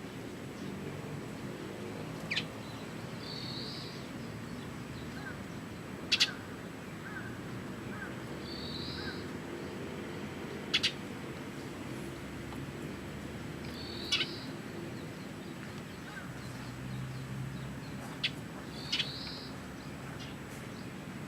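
A bird calling repeatedly: short, sharp high notes about every four seconds, some followed by a brief rougher note, over a steady low background rumble.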